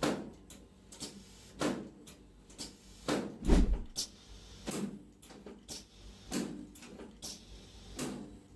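A series of thumps and knocks, about seven, the loudest a deep thud about three and a half seconds in: a patient's body being moved and pushed on a treatment couch during a chiropractic adjustment for low back pain.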